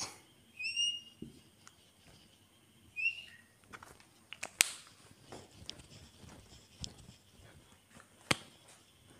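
Whiteboard marker squeaking in two short, high chirps as it is drawn across the board, with faint scratchy marker strokes and two sharp taps later on.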